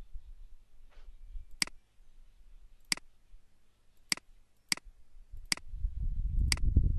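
Six sharp computer mouse clicks, spaced about a second apart, with a low rumbling noise rising near the end.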